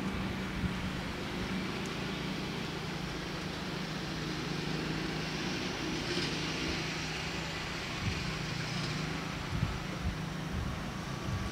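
Steady low hum of a vehicle engine running, with a brief swell of hiss about six seconds in.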